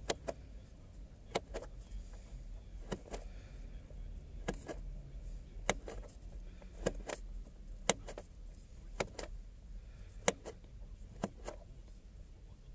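Trip-odometer reset button on a Ford Escape instrument cluster being pressed about ten times, roughly once a second. Each press gives a short double click, on the push and on the release, as the cluster steps through its self-test items.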